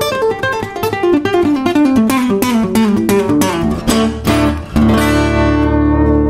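Secco FDG500 steel-string acoustic guitar played fingerstyle: a quick run of single plucked notes stepping down in pitch, then a full chord struck about five seconds in and left ringing.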